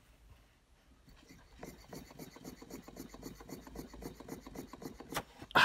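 Stuart Turner 10H model mill engine running on breath blown into its inlet pipe: a quick, even beat of piston and valve strokes, several a second, starts about a second and a half in. A sharp click and a loud breath follow at the very end.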